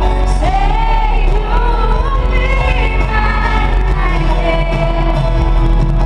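A female pop singer's live vocal, amplified through an arena sound system, singing a sustained melodic line over steady band accompaniment with heavy bass.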